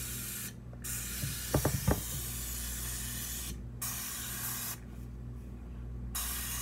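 Aerosol cooking spray can hissing in several bursts with short breaks, the longest nearly three seconds. The can is running low and only a little spray comes out. A few light knocks come about a second and a half in.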